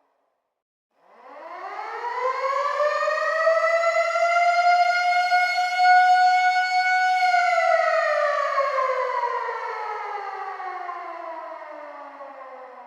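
Air raid siren starting from silence about a second in, winding up in pitch to a steady held wail, then winding down slowly, falling in pitch and fading over the second half.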